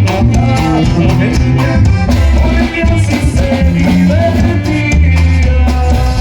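Norteño band playing a corrido: accordion-led melody over bajo sexto, bass and drums, loud and continuous with a steady beat.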